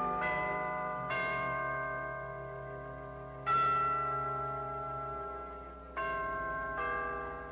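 Slow bell-like instrumental music: five struck chime notes, each ringing out and slowly fading, over a low sustained drone.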